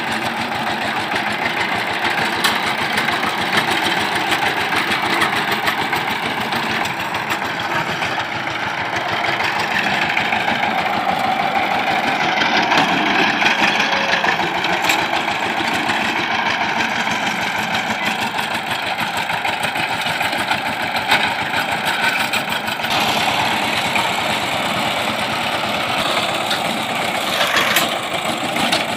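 Two-wheel power tiller's single-cylinder diesel engine running steadily as the machine tills the soil.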